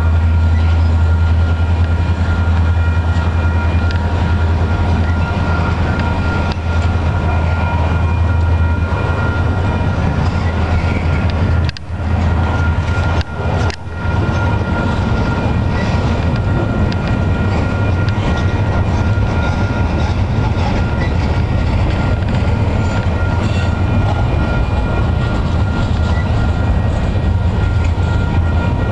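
Double-stack container train's well cars rolling past at a grade crossing: a loud, steady rumble and rattle of wheels on the rails, with a steady high ringing tone over it. The sound dips briefly twice about halfway through.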